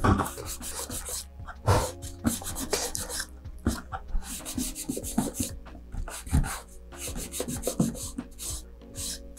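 Gloved fingers rubbing and pressing along the fin joint of a model-rocket body tube, working in a fin fillet: irregular rubbing and scraping strokes. Faint background music underneath.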